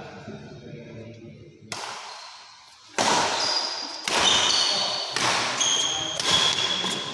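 Badminton rally in a reverberant hall: rackets strike the shuttlecock with sharp cracks about once a second, starting about two seconds in. Shoes squeak briefly on the court floor between the hits.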